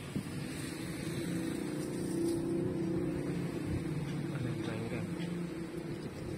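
A steady low motor hum, like an engine or machine running nearby, with a few small clicks near the start.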